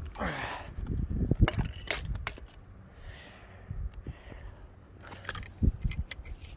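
Scattered clinks and knocks of metal scrap, bike pedals among it, being handled on a fishing magnet, with a short vocal exclamation at the start.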